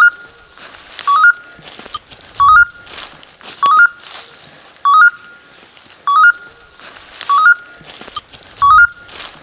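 Hunting dog's beeper collar in point mode: a short electronic chirp of three quick rising notes, repeated about once a second. It signals that the dog has stopped and is holding a point.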